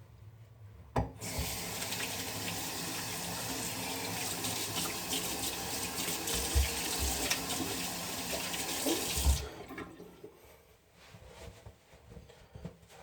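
Sink faucet turned on with a click and running water into the basin for about eight seconds, then shut off.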